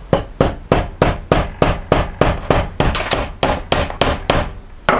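A hammer tapping a small steel wedge into the top of a new wooden handle in a lump hammer's head: quick, even blows, about three or four a second.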